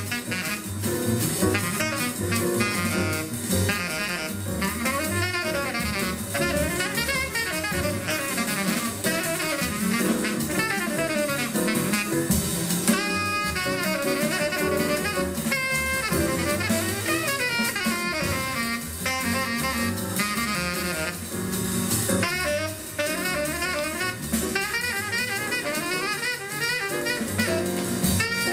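Jazz music with saxophone and drum kit.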